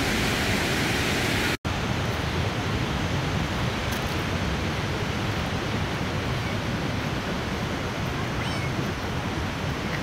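Steady rushing of a cascading waterfall, cut off for an instant about a second and a half in and then going on a little softer and duller.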